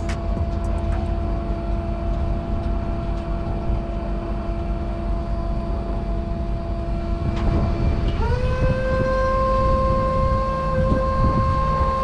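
Steady whine of the car hauler's hydraulic deck system over a low rumble; about eight seconds in the pitch steps up quickly and holds higher.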